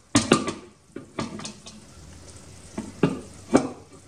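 Silicone spatula scraping and pressing an orange mixture through a fine metal mesh sieve over a pot, in irregular scraping strokes: a quick cluster at the start, a few more about a second in, and two near the end.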